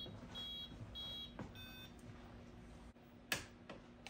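Short, even electronic beeps about 0.6 s apart from the RC car's radio electronics as they are powered up, the last beep in a different, lower tone. A single sharp click follows about three seconds later.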